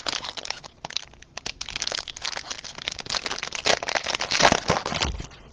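Trading-card pack wrapper crinkling and crackling as it is handled and opened, a dense run of small crackles that eases off just before the end.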